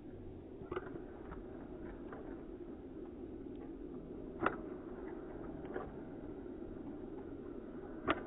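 Steady low outdoor rumble with four sharp taps, the loudest about four and a half seconds in and just before the end.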